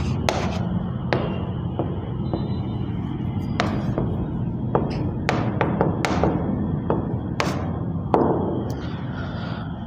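Handwriting on an interactive smartboard's screen: sharp, irregular taps and knocks of the writing hand and pen against the glass, about ten in all, over a steady low hum.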